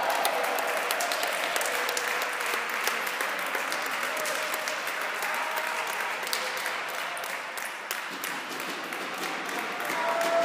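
Spectators applauding, a steady clatter of many hands clapping, with a few voices calling out in the crowd.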